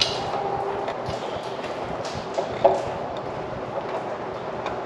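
Scattered light clicks and knocks of hands working a wire into the holder on a ditch light bracket, over a steady background hiss.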